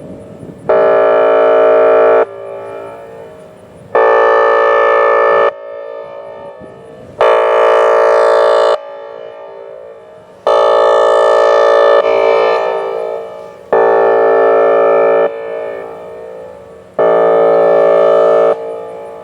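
Whelen Vortex R4 electronic outdoor warning siren sounding its air horn signal: six loud blasts of one fixed, buzzy tone. Each blast lasts about a second and a half and comes roughly every three seconds, cutting off sharply and leaving a fading echo.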